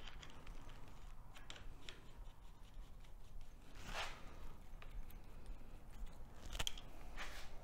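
Faint scattered metallic clicks and rubbing as a motorcycle fork end cap is threaded on by hand.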